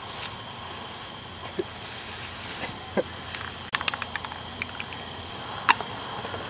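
Aerosol spray paint can hissing in spurts, with several sharp clicks and knocks from the can being handled about halfway through and again near the end.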